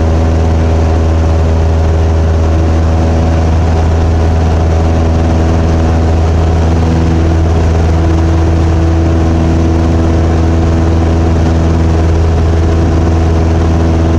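Single-engine piston airplane's engine and propeller running at steady power in flight, heard from the cabin as a loud, even drone with a strong low hum.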